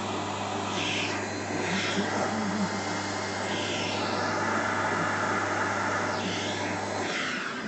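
Vacuum cleaner running steadily with a low hum, then cutting off about seven seconds in.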